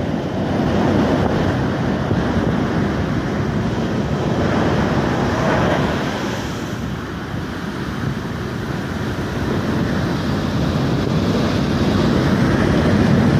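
Ocean surf breaking and washing up a sandy beach in a continuous rush, with wind buffeting the microphone. A wave's wash swells about halfway through, and the surf grows louder near the end.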